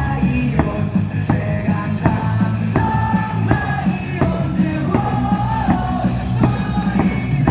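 Stadium cheering music over the loudspeakers with a steady beat, and the crowd singing and shouting along.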